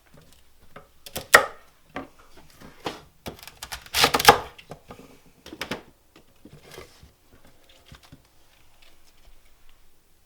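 Knife cutting celery stalks on a cutting board: irregular crisp chops and knocks, the loudest a cluster of cuts about four seconds in.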